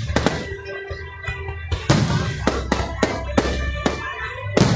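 Fireworks shells bursting overhead in an uneven series of about ten sharp bangs, with music playing in the background.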